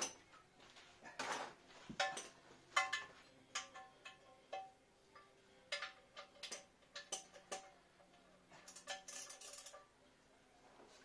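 Irregular metal clinks and taps, each with a short ring, from hand tools being worked on the oil pan drain plug under the car.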